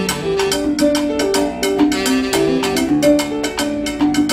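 Live Latin dance music from a small band: piano notes over a steady beat of struck hand percussion.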